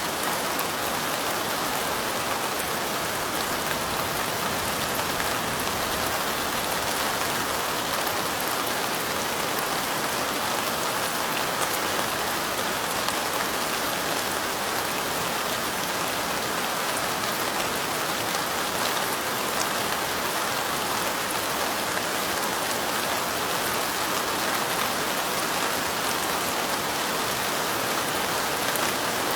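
Steady light rain falling, an even hiss with no thunder or other distinct sounds.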